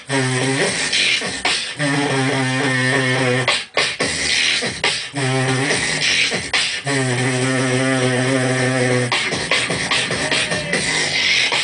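Live beatboxing into a microphone: long, held, buzzing bass notes in repeated phrases of one to two seconds, broken up by quick clicking drum-like hits and hissing hi-hat sounds.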